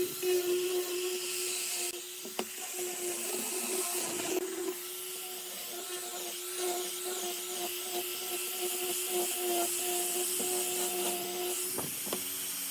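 An electric power tool motor running steadily on wood, a constant motor hum under a bright hiss.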